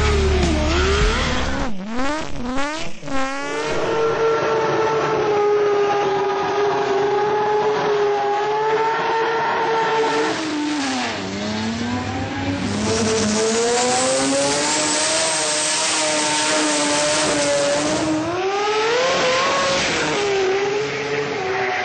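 Rotary (Wankel) racing engines revving hard: a jet sprint boat's engine sweeping rapidly up and down in pitch, then a rotary drag car's engine held at high revs through a tyre-smoking burnout, dipping and climbing again as it launches.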